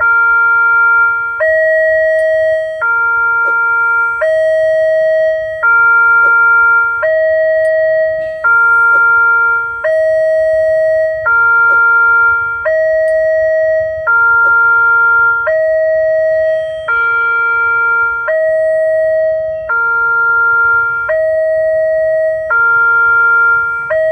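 Electronic alarm of an Indonesian railway level crossing sounding from its pole-mounted loudspeaker: a loud two-tone chime alternating high and low, each tone held about a second and a half, warning that a train is approaching.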